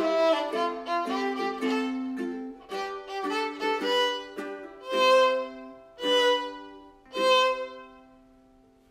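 Background instrumental music led by a violin: a run of notes that ends in three single notes about a second apart, then fades out near the end.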